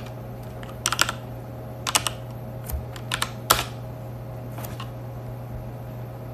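Clusters of sharp clicks and taps, about six in the first five seconds, over a steady low hum.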